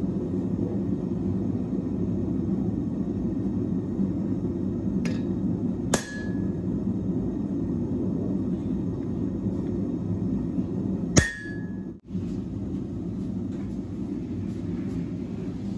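Two sharp hammer blows on a chisel held against a hot steel feather on the anvil, about five seconds apart, each leaving a brief high metallic ring, with a fainter tap just before the first. A steady low rushing noise runs beneath.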